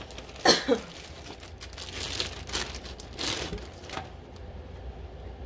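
Plastic packaging crinkling and rustling as it is handled, in a few short bursts, then quieter near the end.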